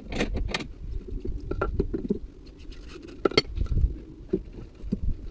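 Metal hand tools clinking and clicking against the van's front suspension parts during lower-arm removal: a quick run of sharp, evenly spaced clicks at the start, then scattered clinks, the loudest a little past three seconds in.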